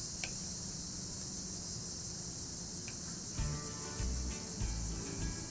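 Steady high-pitched chorus of crickets. A little past halfway, background music with a bass line comes in over it.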